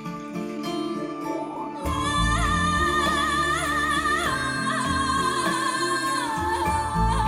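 Music from a slow Chinese ballad in a passage without lyrics. A soft sustained opening swells about two seconds in, as bass and a wavering, ornamented lead melody come in.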